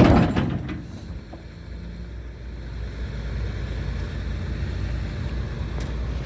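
A single loud bang on the steel scraper apron right at the start, ringing out and dying away within about a second, as the dents are pounded out. Under it a heavy diesel engine, most likely the excavator's, runs steadily.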